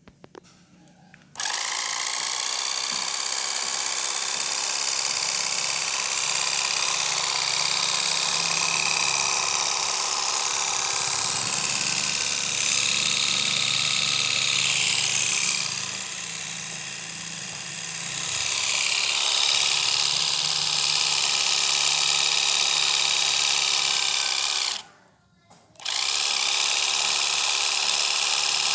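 Small electric motors of a radio-controlled model combine harvester whirring steadily at a high pitch. The sound starts about a second in, eases off for a couple of seconds in the middle, and stops briefly about three quarters of the way through before running again.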